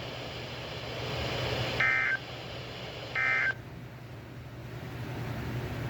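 NOAA Weather Radio EAS SAME data bursts: two short bursts of buzzy digital data tones about a second apart, the End of Message code that closes the weekly test, over a steady radio hiss and low hum.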